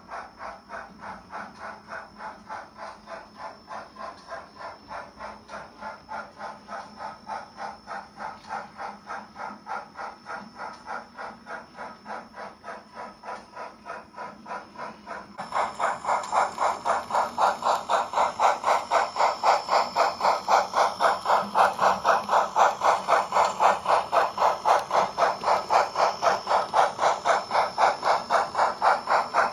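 H0n3 Colorado & Southern Mogul model steam locomotive running with a steady, even steam chuff, about three beats a second, with a faint steady high whine above it. It gets suddenly louder about halfway through.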